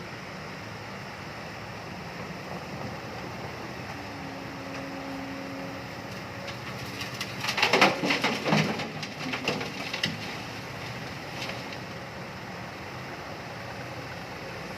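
Excavator engine running steadily. About halfway through comes a burst of clattering and scraping, the loudest part, lasting about three seconds.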